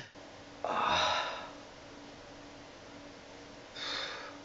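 A man's breath: a sudden, forceful breathy exhalation lasting under a second about half a second in, then a softer breathy sigh near the end, over a faint steady hum.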